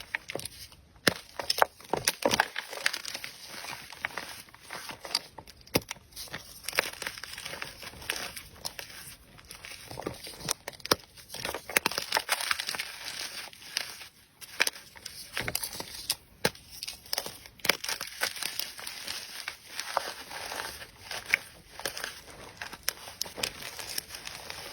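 Slime being squeezed and poked by hand, giving a dense run of small sticky pops and crackles with a few louder clicks.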